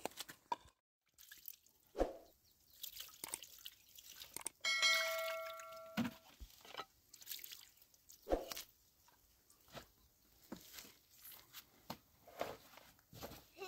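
Water dripping into a plastic jug, with scattered taps and knocks as the jug and its cap are handled. A brief steady pitched tone lasts just over a second about halfway through.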